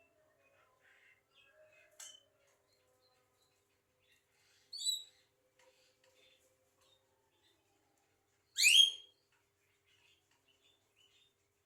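Javan myna calling: faint scattered chatter, a short high whistle about five seconds in, and a louder short call near nine seconds.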